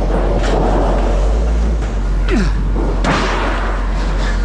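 Sheet-metal panels being thrown onto a scrap pile: clattering metal crashes, the loudest about three seconds in, with a brief falling scrape just before it, over a steady low engine rumble.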